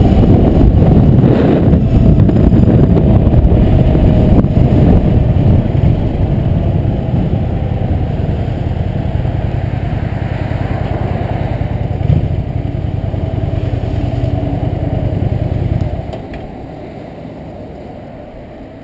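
Cruiser motorcycle engine running while riding, with wind on the microphone. The bike slows, and the engine rumble stops abruptly about sixteen seconds in as it is shut off, leaving only a quiet hum.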